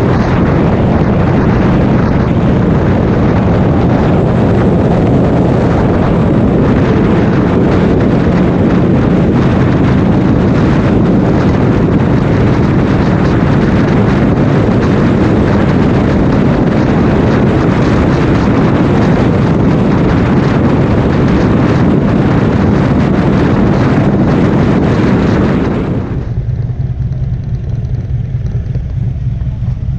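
Harley-Davidson touring motorcycle at highway speed: steady wind rush on the microphone over the low drone of the engine and tyres. About 26 s in it drops abruptly to a quieter low engine idle.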